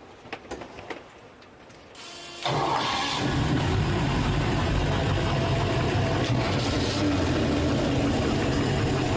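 5.7-litre MerCruiser V-drive inboard V8 of an express cruiser cold-starting: a few light clicks, brief cranking about two seconds in, then it catches and settles into a steady idle.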